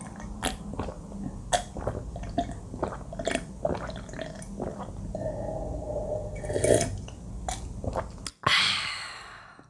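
Close-up chewing and crunching of fried chicken: irregular short crunches and mouth clicks over a low steady hum. Near the end a loud hiss comes in suddenly and fades away.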